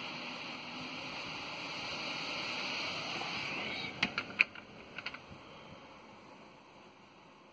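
Steady rushing hiss of thunderstorm wind and rain, broken by a few sharp clicks about four and five seconds in; after the clicks the hiss fades away.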